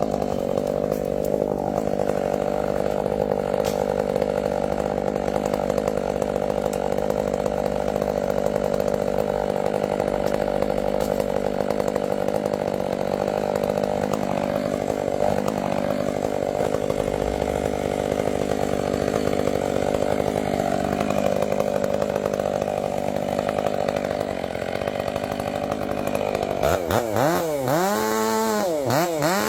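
A large motor-driven power saw running steadily as it cuts wood. Near the end its pitch swings rapidly up and down several times.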